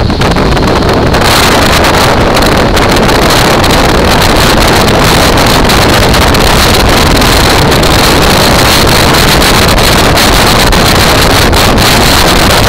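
Heavy wind noise on the microphone of a camera on a moving motorcycle, mixed with the motorcycle's engine running. It grows louder about a second in as the bike pulls away from a stop and then stays steady.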